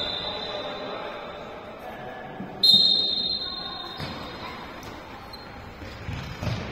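Referee's whistle blown once, a shrill blast of about a second and a half, starting sharply a little after two and a half seconds in. Beneath it are the voices of players and spectators and the thuds of a ball bouncing, echoing in a sports hall.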